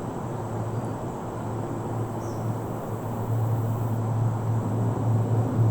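Outdoor ambience: a steady low hum over an even hiss, the hum growing louder about three seconds in.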